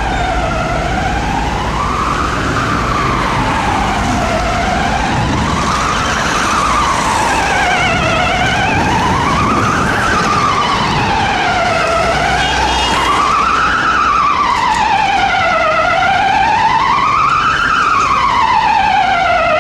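Ambulance siren on a slow wail, its pitch sweeping up and down about once every four seconds and getting a little louder towards the end, over the low rumble of traffic.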